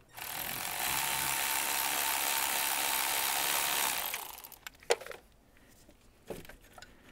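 Milwaukee cordless electric ratchet running steadily for about four seconds as it backs out the last 13 mm alternator mounting bolt, then stopping. A sharp click and a softer knock follow.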